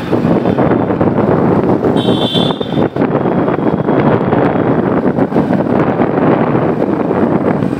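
Wind rushing over the microphone of a moving motorbike, with the bike running along the road, a steady loud noise. A brief faint high tone sounds about two seconds in.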